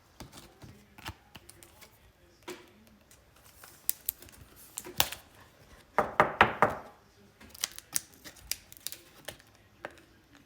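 Trading cards being handled and slid into plastic sleeves on a tabletop: scattered light taps and clicks, with a short run of plastic rustling about six seconds in.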